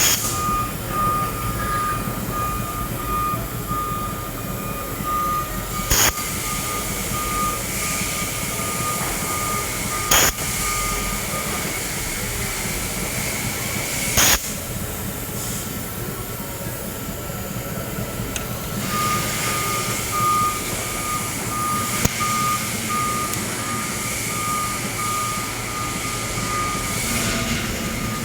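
Electronic beeper sounding a high tone about twice a second, stopping after about five seconds and starting again near two-thirds of the way through, over a steady low running noise. Three sharp clicks fall in the gap, about four seconds apart.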